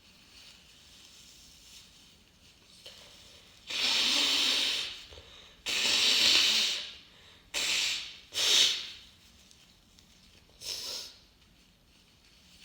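A congested person with a head cold blowing their nose hard: two long blows, then two short ones in quick succession and a last smaller one.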